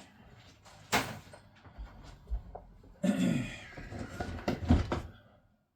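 Clicks and knocks of tools and parts being handled on a workbench, with a sharp click about a second in and a heavier knock near the end.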